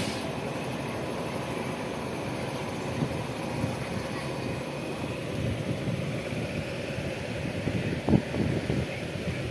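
Passenger train running at speed, heard from the coach: a steady rumble of wheels on the track mixed with rushing air, with one sharp knock about eight seconds in.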